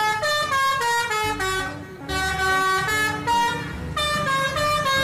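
Tour bus's multi-tone "telolet" musical air horn playing a quick tune of short stepped notes, in phrases with brief breaks about two and four seconds in.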